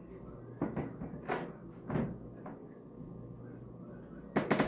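Knocks and clunks of kitchen handling, like cupboard doors and items being set down: four separate ones, then a quick cluster near the end, over a steady low hum.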